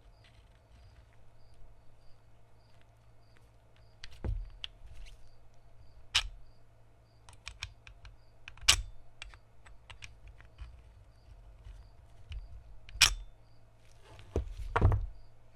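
Sharp metallic clicks and clacks of a restored Colt Model 1908 pistol's action being worked by hand. Three loud snaps come a few seconds apart, with quieter clicks between them.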